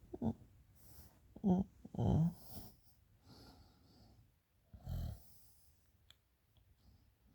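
A woman snoring in drunken sleep: short, irregular snorts and wheezy breaths. Two loud ones come close together about a second and a half and two seconds in, and another about five seconds in.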